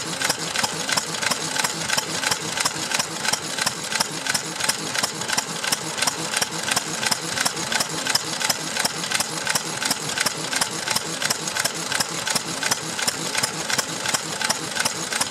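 Stover Type K hopper-cooled stationary engine running steadily. Its strokes clatter in a fast, even beat with no missed beats.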